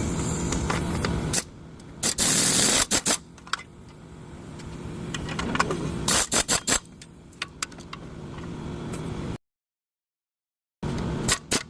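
A car's exhaust rattling and scraping with the engine running, the sound of a broken catalytic converter, in several short cut-together stretches with sharp clicks and a brief total silence near the end.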